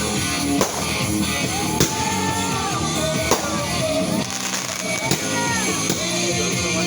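Loud rock music with singing, with a few sharp, unevenly spaced fireworks bangs over it.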